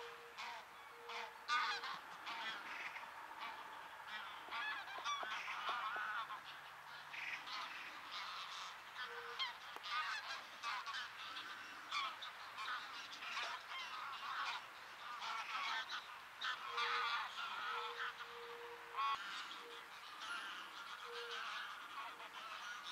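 A flock of wild geese honking in flight, many overlapping calls in a continuous chorus.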